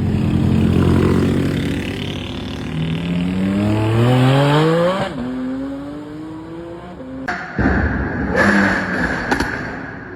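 Lamborghini Huracán STO's naturally aspirated V10 engine running, then revving up with a rising pitch. The note breaks off sharply about five seconds in and climbs again more slowly. Near the end there is a sudden loud, noisy burst with a few sharp cracks, and the sound fades out.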